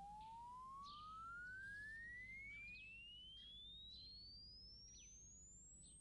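A quiet, pure whistle-like tone that glides steadily upward in pitch from low to very high: a cartoon sound effect for a sprout growing up out of the ground. Faint bird chirps sound behind it.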